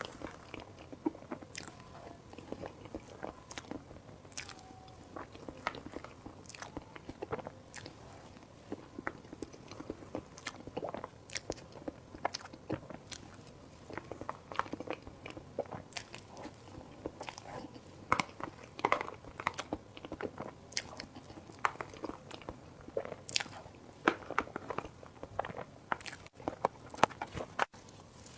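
Close-miked eating sounds: biting and chewing of food, with a steady run of short wet smacks and crisp clicks.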